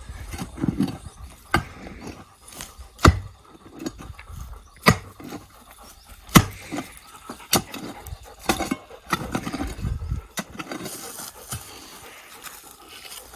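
A digging tool striking hard into clay soil, a sharp blow about every one and a half seconds, while a fence post hole is dug deeper.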